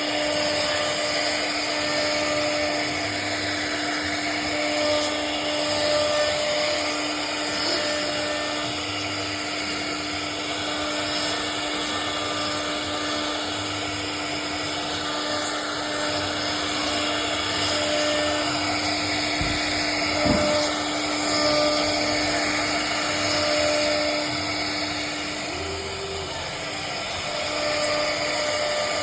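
CNC router spindle running with a steady whine as it cuts into a wooden door, with a brief knock about two-thirds of the way through.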